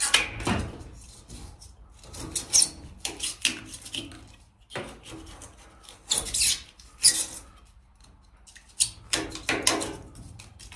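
Sprayed-on foam insulation being cut and dug out with a hand blade: irregular bursts of rasping, scraping strokes with short pauses between.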